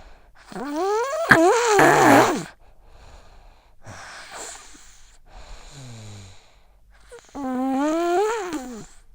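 A sick child snoring in her sleep with congested, wheezy breaths. Two loud breaths, about a second in and near the end, carry a wavering pitch that rises and falls. A quieter breath between them ends in a low, falling snore.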